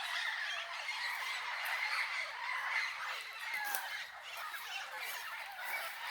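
A flock of parrots and parakeets chattering and squawking, many overlapping calls at once in a steady, dense chorus.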